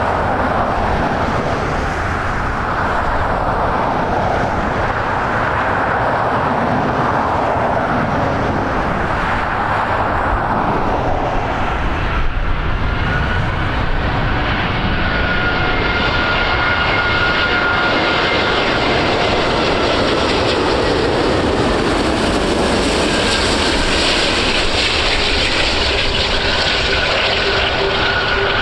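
Qantas Airbus A380's four Rolls-Royce Trent 900 turbofans on final approach: a steady jet roar with a whine that comes in about halfway and swells as the airliner passes close overhead, just before touchdown.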